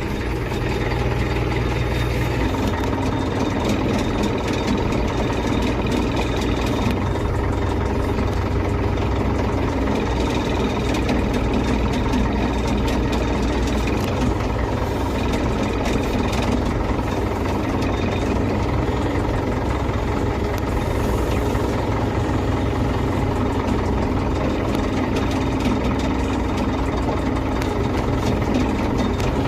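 Diesel engine of a Case 770 backhoe loader running steadily with the throttle raised a little.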